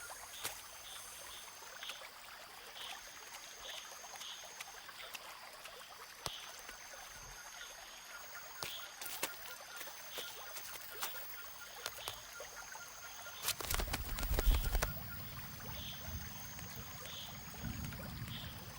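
Rainforest ambience: high, steady trills repeating every few seconds over regular short chirps and scattered clicks. A brief low rumble comes about three-quarters of the way through.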